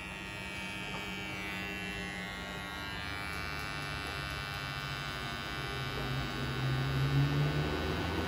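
Kemei electric hair trimmer buzzing steadily as it trims the hair around the ear. About three seconds in a lower note joins the buzz and it grows louder, strongest near the end.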